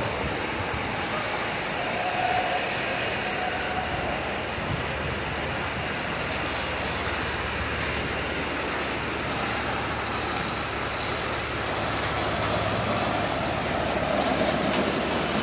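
Steady rushing noise of water, even and unbroken throughout.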